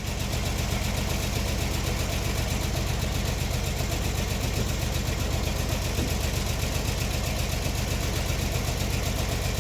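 An engine idling steadily, a fast even low beat that holds the same speed throughout.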